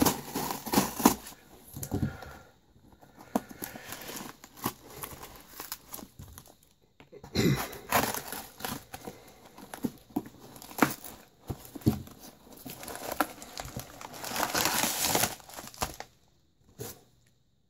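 A cardboard shipping box being opened by hand: irregular rustling, scraping and tearing of cardboard and crinkling of packing material, with sharp knocks and clicks here and there. A longer, denser rustle comes around two thirds of the way through, and the handling stops near the end.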